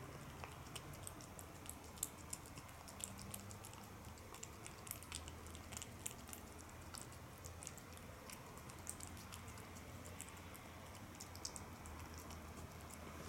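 A cat eating flaked tuna from a plate: quiet, irregular wet clicks of chewing and licking, several a second, over a faint low hum.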